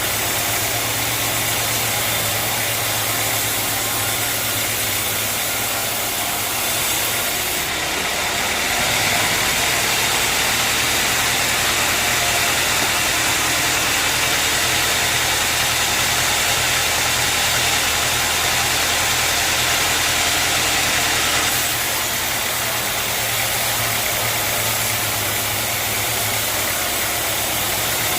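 Sawmill machinery running steadily with a low hum and a hiss, growing louder and brighter through the middle stretch before settling back.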